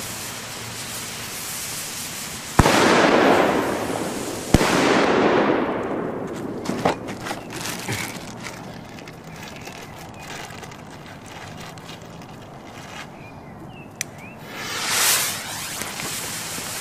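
Two Trueno N°6 Especial firecrackers going off: two sharp bangs about two seconds apart, each followed by a long echoing tail. Near the end another lit fuse fizzes and sparks.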